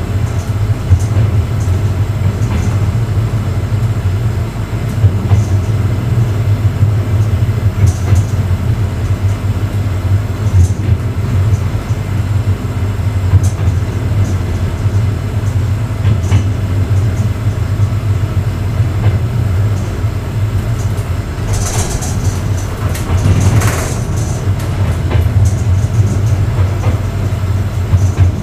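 Passenger railway car running at speed, heard from its rear vestibule: a steady low rumble from the wheels on the rails, with sharp clicks every few seconds as the wheels pass rail joints and switches. A harsher, higher-pitched burst of noise comes about 22 seconds in.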